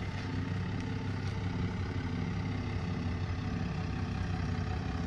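Diesel pickup truck engine idling steadily as the truck creeps forward at low speed.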